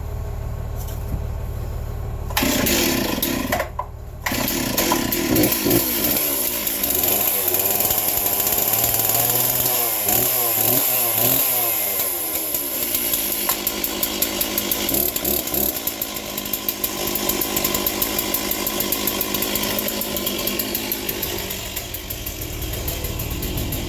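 Small two-stroke engine of a handheld yard tool starting from cold after long disuse. It catches a couple of seconds in, falters briefly, then runs with its speed wavering up and down before it settles into steady running.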